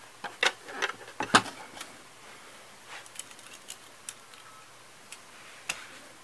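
Hard plastic Playmobil pieces clicking and clacking as they are handled and fitted, with a few sharper clacks in the first second and a half, then sparse faint ticks.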